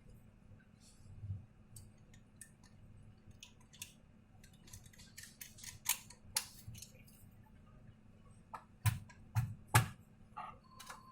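Scattered light clicks and taps of laptop casing and small parts being handled, with three louder knocks about nine seconds in.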